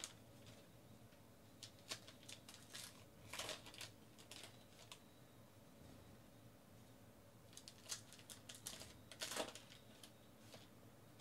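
Quiet clicks and rustles of trading cards being handled and stacked, and a baseball card pack's wrapper crinkling as it is torn open. The sounds come in two spells a few seconds apart, the loudest rustle near the end.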